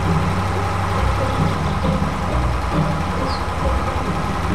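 Steady engine idling rumble, the engine sound of a toy road roller being driven through sand.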